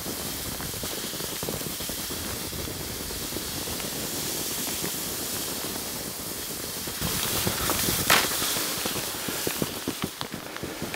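Skis hissing and scraping as they slide down a snowy track. The hiss grows louder about seven seconds in, with one sharp knock about a second later.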